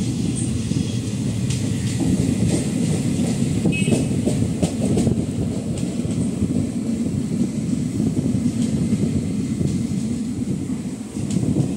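Indian Railways passenger train running along the track, heard from aboard the coach: a steady rumble of the wheels on the rails with scattered sharp clicks.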